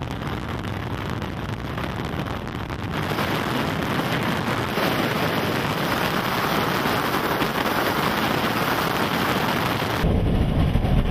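Steady hiss of wind and rain, growing heavier about three seconds in. Near the end it gives way to the low rumble of a car driving.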